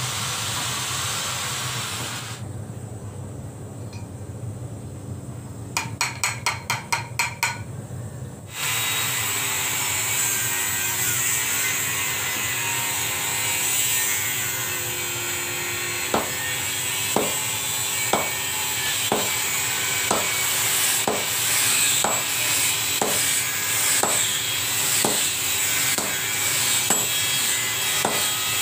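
Blacksmith's workshop metalworking. A quick run of about eight hammer blows on metal, then steady working noise with a ringing metal strike about once a second.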